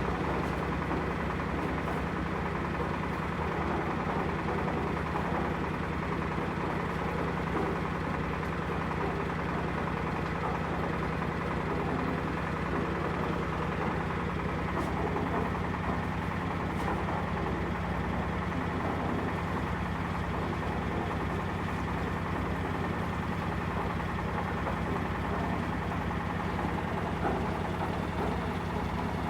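Concrete mixer truck's diesel engine running steadily at idle, a low even drone with no change in pitch.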